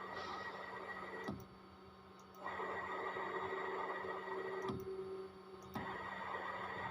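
An electric servo motor and drive running under test: a machine whine with steady tones over a constant low hum. The whine stops abruptly with a click twice and starts again each time about a second later.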